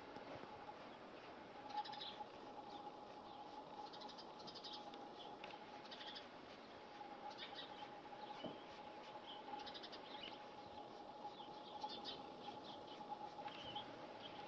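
Faint bird chirps in short bursts every second or two, over a faint steady tone.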